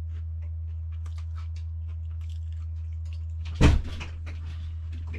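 A steady low hum, with one loud, sharp knock about three and a half seconds in.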